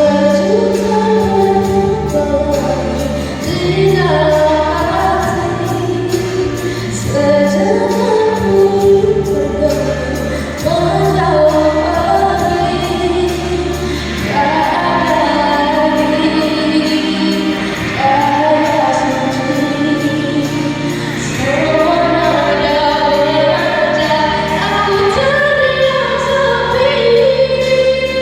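A singer performing a song over instrumental backing, with sung phrases every few seconds ending in long held notes, over a steady bass line.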